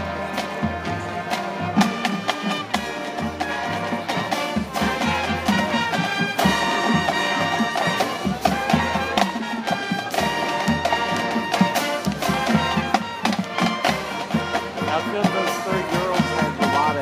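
A marching band playing its field show: brass melody over low brass and drum and percussion hits.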